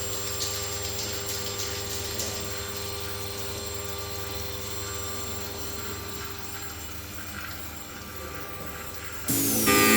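CNC milling machine cutting duralumin: a steady spindle hum with a few fixed whining tones over a hiss. About nine seconds in it becomes louder, with more tones and a falling whine.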